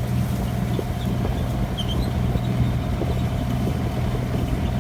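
Motor vehicle engine running steadily while driving, a constant low hum.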